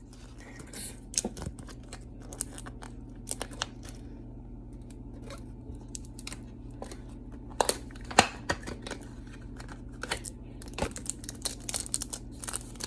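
Trading-card pack wrapper crinkling and tearing as the pack is opened and the cards handled, in irregular sharp crackles and rustles.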